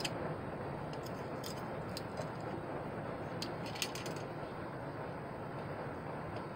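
Faint clicks and scrapes of a utility knife and metal tongs working a cast silver piece out of a Delft clay mold, a handful of light ticks, most of them around the middle, over a steady background hiss.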